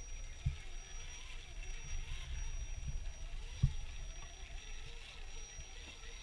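Radio-controlled scale crawler truck climbing wet rocks: a steady low rumble with two sharp knocks, about half a second and three and a half seconds in, and a faint steady high whine.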